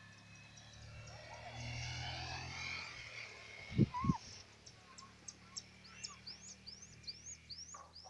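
Repeated high chirps from a small animal, about three a second, starting around halfway through, with two short loud knocks just before they begin.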